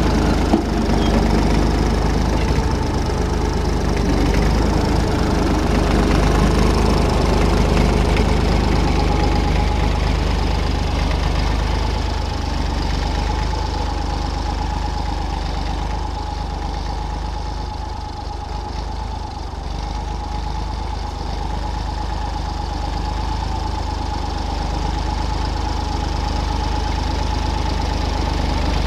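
Engine of a blue vintage tractor running steadily as it drives over a grass silage heap to pack it down. It is loud as the tractor passes close at the start, fades as it moves off, and grows louder again near the end as it comes back.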